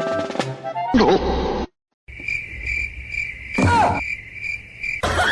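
Crickets chirping: a steady high-pitched trill that pulses a few times a second. It comes after a brief burst of comic sound-effect tones at the start, and a short falling sound cuts across it about two thirds of the way through.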